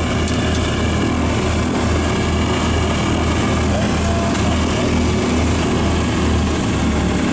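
Radial piston engines of a Douglas DC-3 running steadily, heard from inside the cockpit. Their deep hum throbs about twice a second and steadies near the end.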